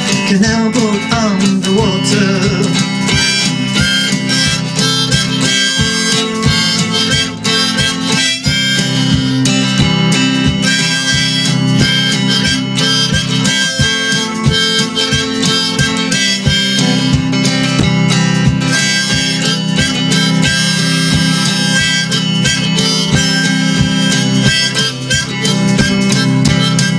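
Harmonica played from a neck rack over steadily strummed acoustic guitar, an instrumental passage of a folk song with no singing.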